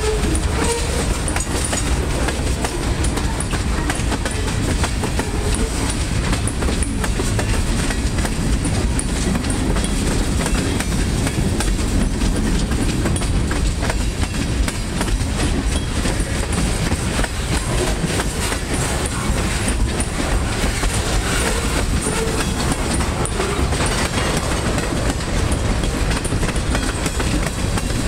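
Freight cars of a passing train, hopper and tank cars, rolling by close: steel wheels clicking over the rail joints in a steady clickety-clack over a constant rolling noise.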